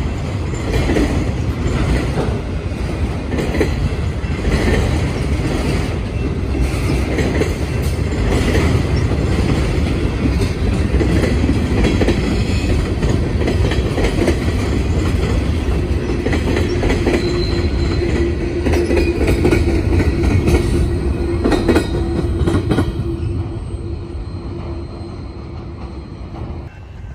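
Freight train of autorack cars and covered hoppers passing: a steady rumble with repeated wheel clicks over the rail joints, and a steady squeal for several seconds past the middle. The sound drops and fades near the end.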